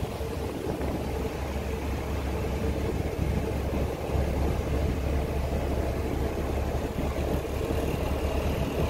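A ship's engine running steadily, heard on board as a low, even drone with a faint steady hum above it.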